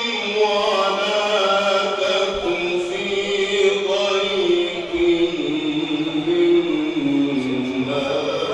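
A man reciting the Quran in the melodic mujawwad style, drawing out one long ornamented vowel whose pitch winds up and down in small steps.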